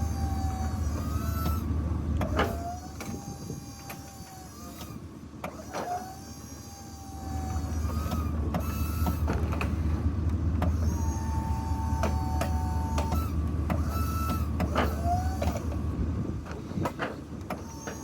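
Myers snowplow's electric hydraulic pump motor running as the plow is cycled up and down. It stops about two and a half seconds in, starts again at about seven seconds, and stops near the end. It runs steadier with air being bled from the fluid, and the plow lifts faster.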